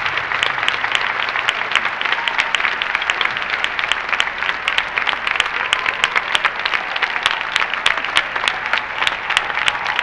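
Large theatre audience applauding steadily, a dense, even clatter of many hands clapping.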